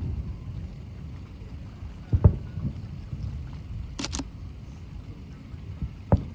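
Fireworks bursting over the lake: a low boom about two seconds in and another near the end, over a steady low rumble. Two sharp clicks in quick succession about four seconds in.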